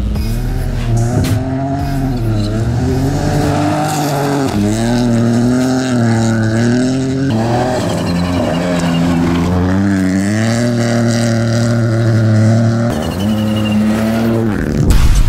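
Ford Fiesta Rally4's turbocharged three-cylinder engine revving hard on gravel, its pitch rising and falling with throttle and gear changes, cutting abruptly between passes a few times. Near the end comes a loud rush as the car passes close and throws gravel.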